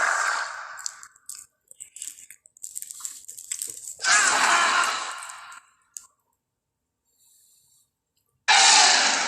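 Giant mutated crocodile monster sound effects: a growl trailing off at the start, a stretch of wet clicking and crackling, then a loud hissing growl about four seconds in and another starting near the end.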